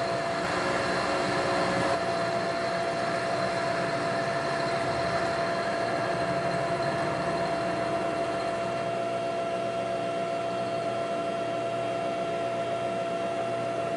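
Precision Matthews PM-935TV milling machine running steadily, its end mill taking a light finishing pass of about 5 thousandths off the bottom edge of a steel T-nut. A steady hum with a clear whine.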